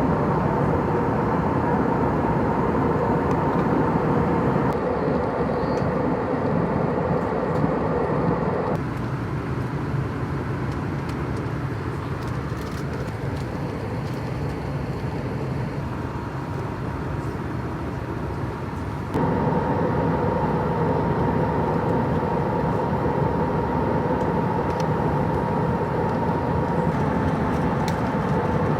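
Airbus A320neo cabin in flight: a steady rushing roar of engine and airflow noise with a faint steady hum running through it. About nine seconds in, the hum drops out and the roar gets a little quieter. It comes back abruptly about ten seconds later.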